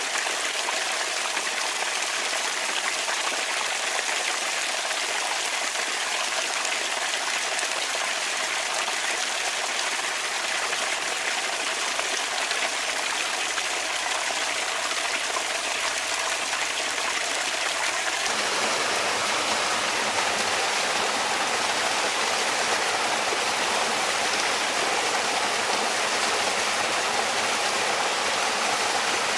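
Water running and trickling steadily from a bamboo water fountain. About two-thirds of the way in, the flow turns fuller and a little deeper and louder.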